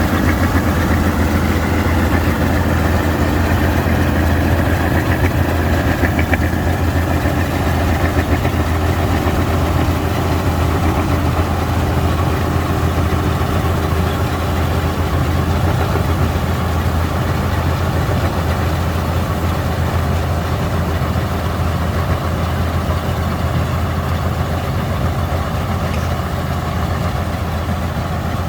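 Vistula KZB-3B combine harvester's engine running steadily with a deep, even hum.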